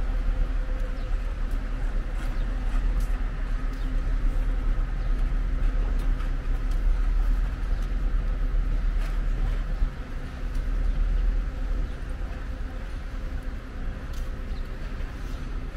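Steady outdoor rumble with a faint mechanical hum running through it, easing slightly about ten seconds in.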